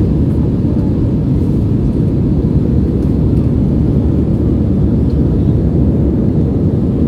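Steady low roar of an Airbus A320-family jet airliner in flight, heard from inside the cabin: engine and airflow noise, even and unbroken.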